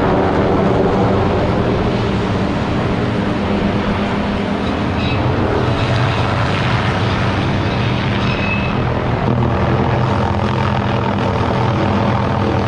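Helicopter of an aerial tree-trimming rig running steadily overhead, a constant rotor and engine drone.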